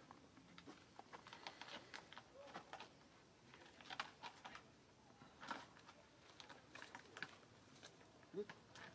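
Faint, irregular wet clicks and smacks from a baby macaque suckling at its mother's teat, with a short rising squeak near the end.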